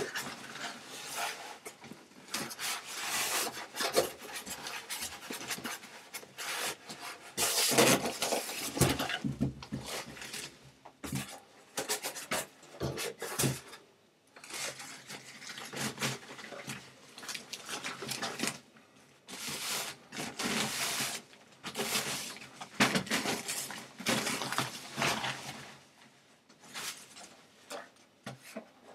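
Polystyrene packing blocks rubbing and scraping against each other and the cardboard box in irregular bursts, mixed with the rustle of the monitor panel's protective foam sleeve as it is handled.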